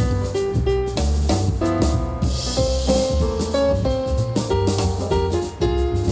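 Pop music with a steady drum beat, heavy bass and keyboard notes, played at full volume through a Minirig portable Bluetooth speaker paired with a Minirig Subwoofer 3.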